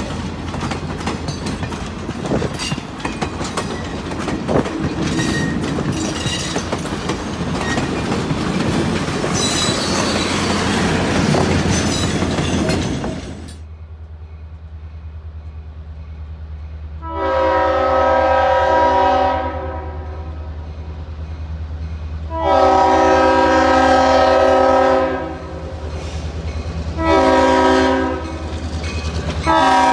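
Passenger cars rolling past with the clickety-clack of their wheels over the rail joints. Then, under a steady low diesel rumble, the horn of a Santa Fe CF-7 diesel locomotive sounds the grade-crossing signal: two long blasts, one short, and a final long one starting near the end.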